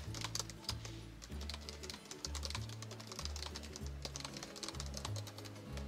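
Soft background music with slow, held low bass notes, over a run of quick, light keystrokes typing on a computer keyboard.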